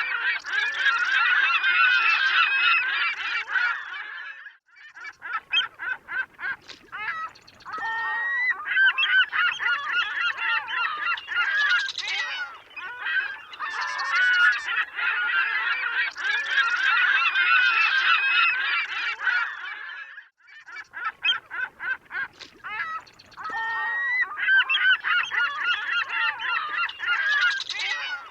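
A flock of gulls calling, many overlapping cries at once. The chorus thins to a few separate calls about five seconds in and again a little after twenty seconds, then fills back in.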